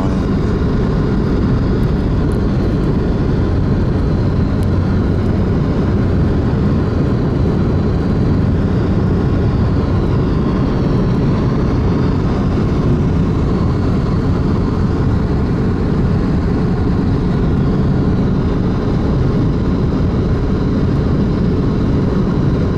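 Steady road and engine noise of a car being driven, a constant low rumble with no breaks.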